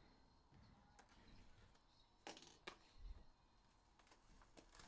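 Faint crinkles and crackles of plastic shrink wrap being handled and peeled off a sealed trading-card box, a couple of sharper crackles about two and a half seconds in and a few more near the end, over near silence.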